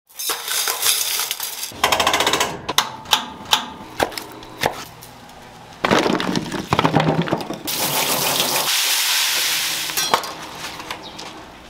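Kitchen fish-prep sounds in quick succession: sharp knocks and clatters of fish and utensils, then a steady hiss for about two seconds. Near the end there is a knife tap on a wooden cutting board.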